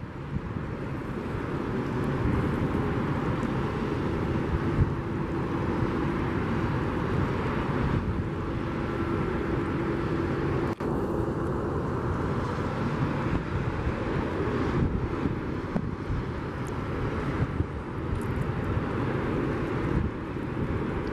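Boeing 737's CFM56 jet engines running at taxi power: a steady noise with a faint whine that comes and goes, growing a little louder over the first two seconds.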